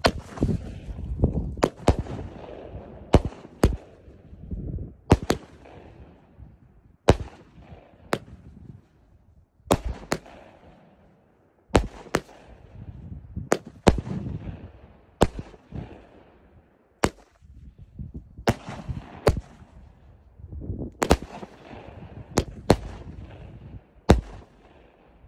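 A 'Bloody Mary' consumer firework battery (cake) firing shot after shot: a string of sharp bangs, roughly one every second or two, with hissing between them.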